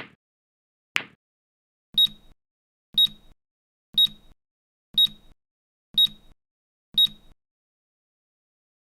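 Two sharp clacks of the Newton's cradle balls a second apart, then the timer's end alarm: six short high-pitched beeps, one each second, after which it stops.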